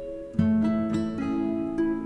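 Background instrumental music of plucked string notes, with a fuller, louder chord coming in about half a second in.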